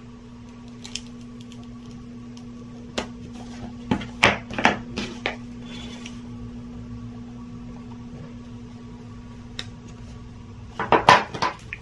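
Handling of a cardboard knife box and a folding knife: scattered light clicks and taps, busiest in the middle and ending in a louder cluster, over a steady electrical hum.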